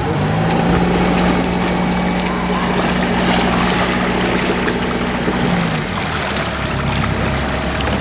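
Sailing yacht's inboard engine running at raised revs as the boat pulls away from the quay under power, the propeller churning the water; about six seconds in the revs drop back and the hum fades.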